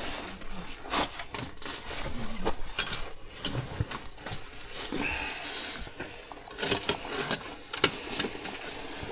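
Irregular clatter and scraping of footsteps over loose slate rubble, with scattered sharp knocks of stone on stone.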